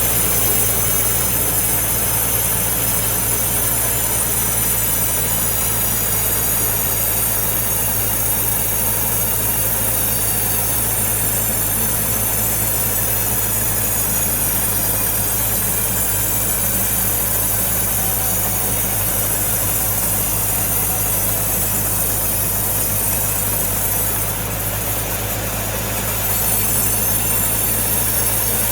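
Sawmill machinery running steadily: a constant low hum with a high whine over it. It dips briefly about 24 seconds in.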